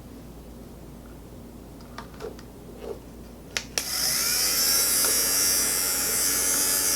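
A few handling clicks, then a rechargeable electric fabric lint remover (sweater shaver) switched on about four seconds in: its small motor spins up and runs with a steady high whir.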